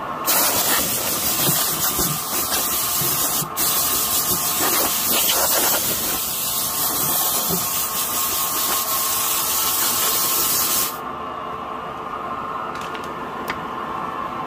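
Wood lathe running steadily while a cutting tool bites into the turning log: a loud, steady hissing scrape from just after the start until about 11 s in, when it stops abruptly and the lathe keeps turning alone.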